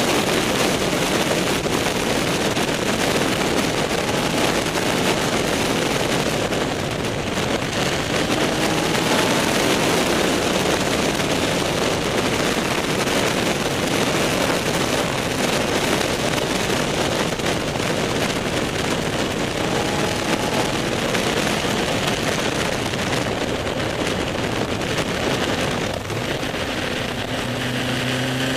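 Wind rushing over the microphone of a moving motorcycle, with the engine running underneath. The engine note rises faintly as the rider accelerates, once about a third of the way in and again near the end.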